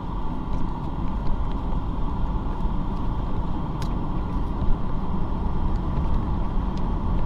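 Steady road and engine noise of a car driving at highway speed, heard inside the cabin, with a few short clicks.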